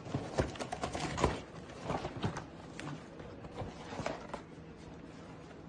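An Amazon package being handled and opened: scattered taps, clicks and rustles, busiest in the first couple of seconds and then sparser.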